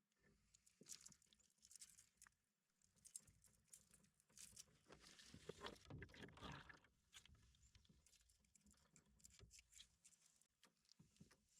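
Near silence, with faint scattered taps and light patter.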